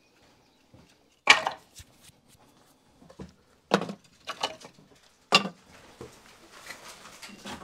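Firewood being chopped for the bread oven fire: three sharp strikes of a blade into wood, about two seconds apart, each with a short splitting crack. Lighter clatter of wood follows near the end.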